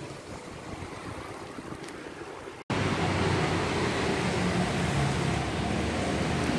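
Wind rushing over the microphone of a camera on a moving bicycle. After an abrupt cut a little under three seconds in, a louder steady background noise with a low hum takes over.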